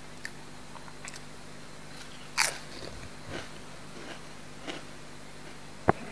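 Biting into a crisp snack chip: one sharp crunch about two and a half seconds in, then a few softer chewing crunches, and a short sharp click near the end.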